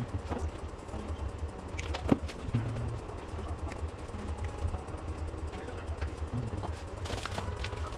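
Clicks and light handling noise from wires and small plastic connectors being worked by hand, the sharpest click about two seconds in, over a steady low hum.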